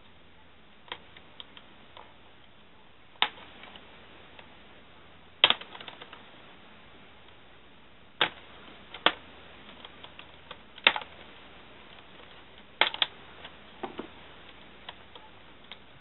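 Plastic screen bezel of a Toshiba Satellite L655D laptop being prised off by hand, its snap clips coming loose in sharp clicks at irregular intervals of a second or two, with fainter ticks between.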